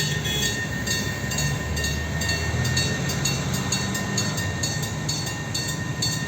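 TCDD railcar MT 15409, a diesel unit, running with a steady low engine drone. A rapid, regular run of sharp clicks sounds over it, a few each second.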